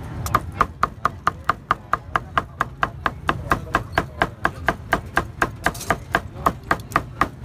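Cleaver chopping grilled pork on a thick round wooden chopping block: a fast, steady run of sharp chops, about four a second.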